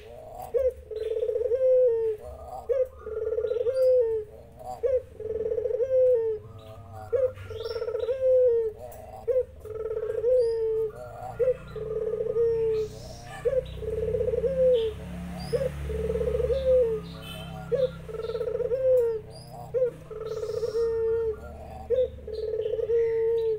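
Puter dove cooing over and over: long, even coos, each ending in a short drop, one every second or two, with other small birds chirping in the background.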